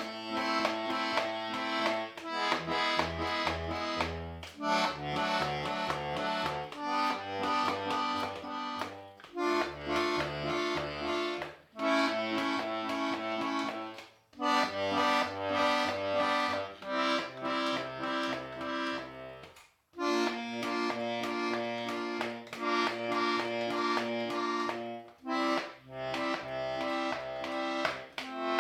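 Hohner Corona II diatonic button accordion in G/C/F, its left-hand bass notes and chords played one after another, each held for a moment, with a few short breaks between groups.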